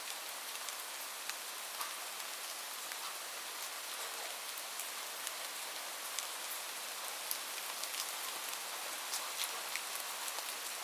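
Light rain falling steadily: an even hiss with many individual drops ticking sharply on a surface.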